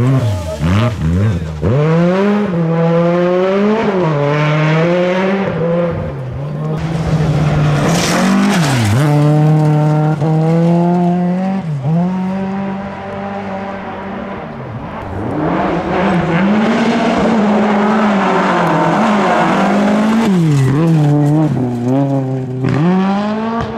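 Rally car engines revving hard past on a gravel stage, the engine note climbing and dropping again and again as the drivers shift and lift through corners, with gravel and dust spraying from the tyres.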